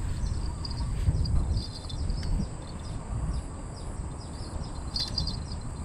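Outdoor ambience of insects and birds chirping in short repeated trills, over a low rumble that swells about a second in.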